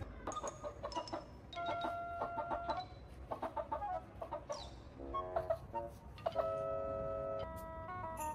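Domestic hen clucking: a string of short clucks and a couple of longer drawn-out calls.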